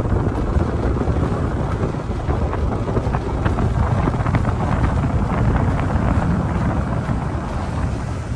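Wind rushing over the microphone on the deck of a moving lake ferry, over the steady low rumble of its engine.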